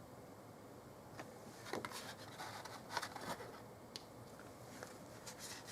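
Tarot cards being handled and laid down on a table: scattered light clicks and rustles of card stock, starting about a second in.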